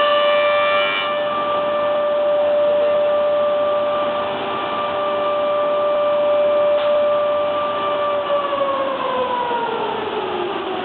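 Electric motor of a woodworking machine running with a steady high whine, then winding down, its pitch falling steadily from about eight seconds in.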